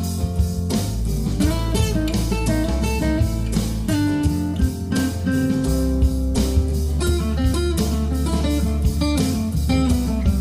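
Background music: a blues-style guitar track with a steady beat.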